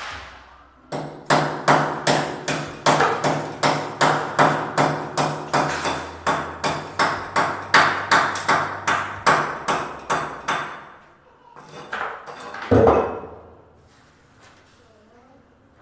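A hammer striking steadily at the edge of a wall opening, about three ringing blows a second for some ten seconds, as the hole for an exhaust fan is worked open. A few looser knocks follow, with one heavier thump near the end.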